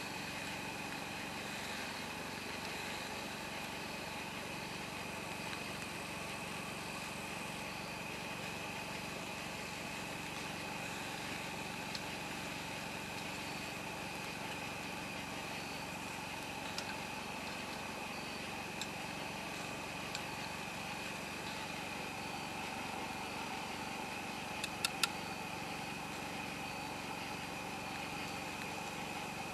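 Chicken wings sizzling on a grill grate over a wood campfire. It is a steady hiss with a hum underneath, and a few sharp pops from the fire, the loudest cluster about 25 seconds in.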